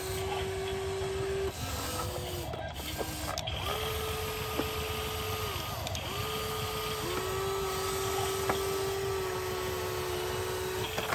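Small electric motors of a toy RC excavator whining in stretches of one to a few seconds as the boom, arm and bucket move, each run sliding in pitch as it starts and stops, with a few light clicks.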